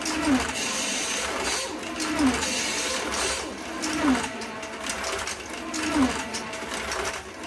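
Small electric motors of 1:32 scale slot cars whining around an oval track, with a short falling-pitch sweep each time a car passes, about every two seconds.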